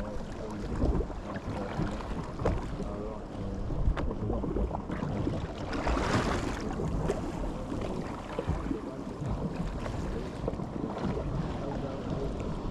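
Wind buffeting the microphone and water slapping against the hull of a small boat at sea, with scattered knocks and a louder rush about six seconds in.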